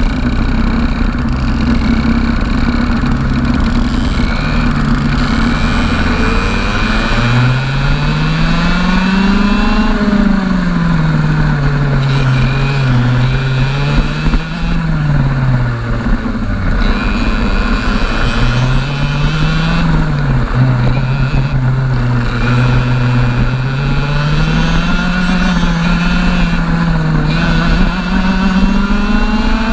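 Kart's 125cc two-stroke TAG engine heard from the driver's seat, revving up and dropping back again and again as the kart accelerates out of corners and lifts into the next ones. Wind rushes over the microphone throughout.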